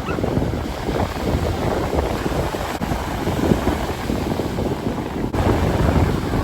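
Wind buffeting the microphone over ocean surf on a beach, a steady rough rush that swells and eases in gusts.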